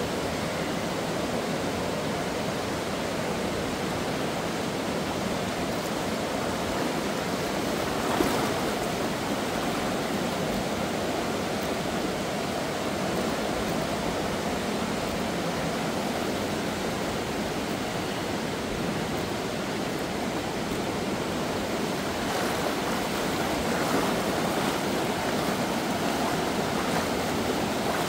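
Alcantara River water rushing steadily through the gorge.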